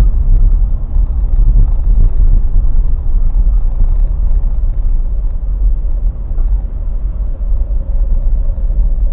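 Steady low rumble of a car moving slowly in heavy traffic, heard from inside the cabin: engine and road noise.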